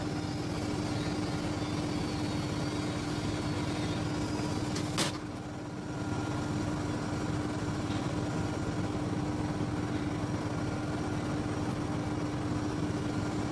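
Steady mechanical hum with a single sharp click about five seconds in, followed by a brief drop in level.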